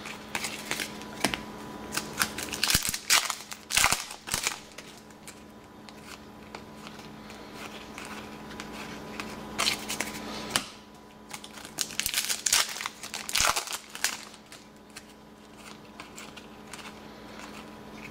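Hands flipping and sliding trading cards through a stack, with the crinkle of a foil card-pack wrapper, in irregular spells of rustling and clicks. A faint steady hum runs underneath.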